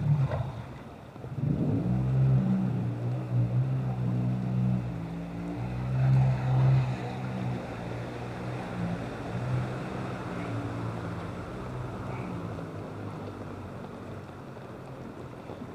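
A motor vehicle's engine running close by, its low hum loudest in the first half and fading away toward the end, over a steady wash of background noise.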